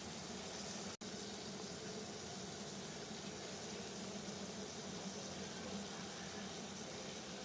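Water boiling steadily, a continuous bubbling with no change. The sound cuts out for an instant about a second in.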